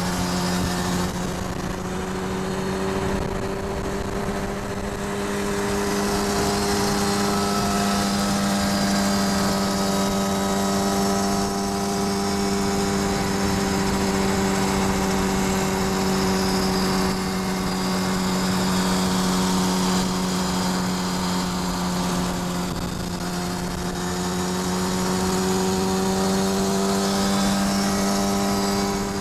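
Kawasaki Ninja sport bike's engine droning at a steady pitch while cruising at freeway speed, heard from an accompanying car, with wind and road noise underneath.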